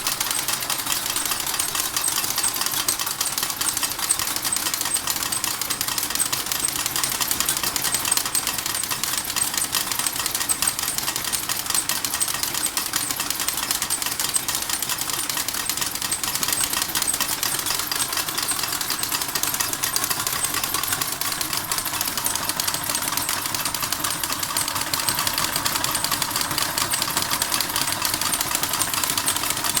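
Model steam engine running with its mechanism clattering and rattling in a dense, rapid, unbroken stream of small knocks.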